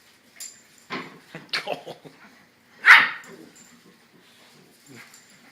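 Small dog giving a few short yips and barks, the loudest a single sharp burst about three seconds in.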